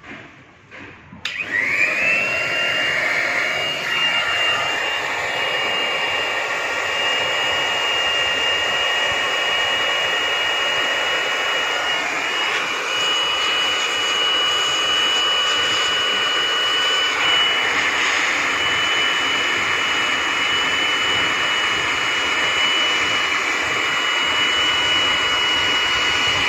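Hot-air plastic welding machine switched on about a second in: its blower motor spins up with a rising whine, then runs steadily with a high, even whine over the rush of air.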